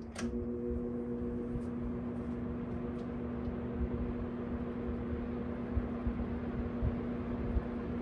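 1970s Sears box fan made by Vernco running, its motor giving off a steady set of hum tones, the uploader's "motor harmonics", over the rush of air. A sharp click right at the start, as a control on top of the cabinet is turned.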